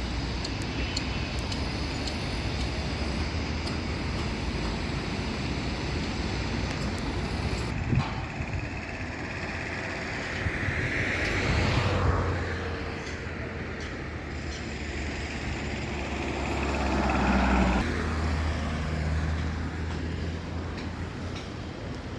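Road traffic going by: a steady rumble of passing cars and heavier vehicles, with a louder vehicle passing about halfway through and another around three-quarters of the way, whose engine hum cuts off suddenly.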